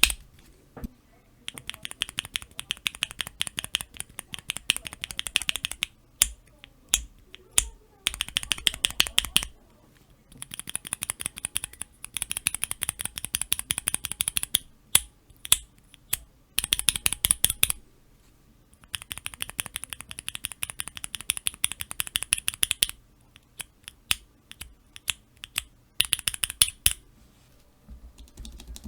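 Cherry MX Black linear mechanical keyboard switches in keychain switch testers, pressed and released over and over: quick runs of clicky clacks lasting a second or two, broken by short pauses and a few single presses.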